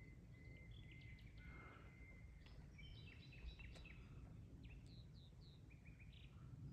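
Faint open-air ambience: a low wind rumble with small birds calling. A thin steady trill runs through the first two seconds, then a busy run of short chirps comes in the middle and a few quick downward-sweeping calls follow.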